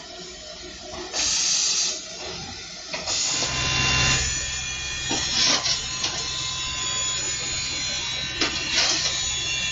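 P36-class steam locomotive standing under steam: a short loud hiss of escaping steam about a second in, then, in the cab, a steady hiss of steam with a low hum under it and a few short clicks and knocks.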